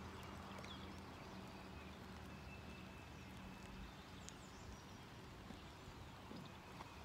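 Light rain falling, heard as a soft even hiss with scattered small ticks. A low steady hum fades out about halfway through, and faint bird chirps come and go.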